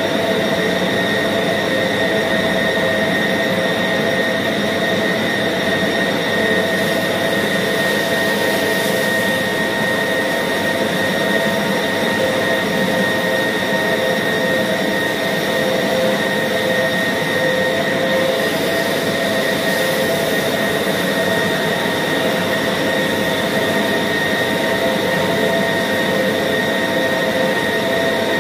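Electric meat band saw running steadily as its blade cuts through blocks of pork: a constant machine whine with no pauses or changes.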